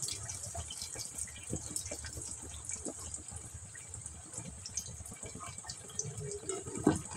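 Potato pakoras deep-frying in hot oil in an iron kadhai: a steady sizzle with many small crackles and pops.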